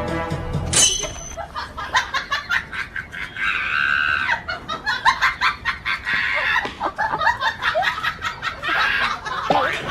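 A chicken squawking and clucking amid quick scuffling and flapping, with louder drawn-out squawks about three seconds in and again near the end.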